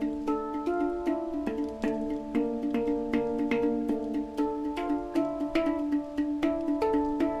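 Background music: a melody of quick, ringing notes over held tones.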